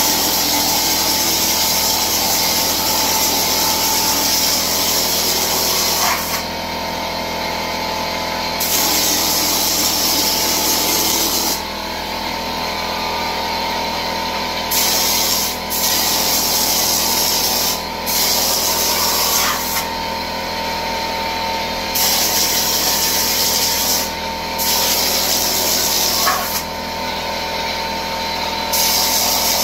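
Air-fed hopper texture gun spraying ceiling texture in about eight hissing bursts, each one to six seconds long, with short pauses between trigger pulls. Underneath is the steady hum of the air compressor feeding it.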